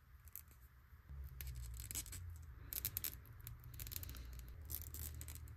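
Plastic packaging and small plastic action-figure parts being handled and unpacked: quiet, scattered clicks, crinkles and scrapes, with a low handling rumble from about a second in.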